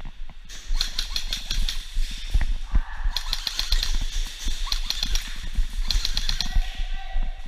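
Airsoft guns firing in rapid bursts, three clusters of fast clicking shots, over knocks and rustling from a player's gear moving against the microphone.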